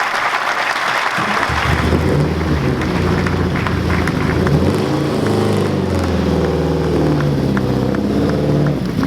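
Applause dying away over the first second or two, then a classic car's engine running at low revs, its pitch stepping up and down as it is driven slowly past.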